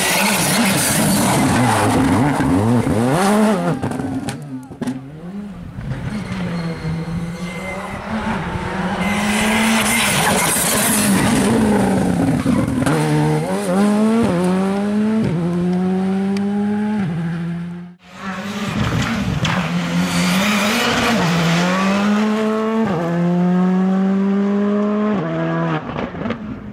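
Rally cars racing past at full throttle, each engine revving hard through successive upshifts: the pitch climbs and drops back at every gear change. An abrupt cut about eighteen seconds in leads to another car passing.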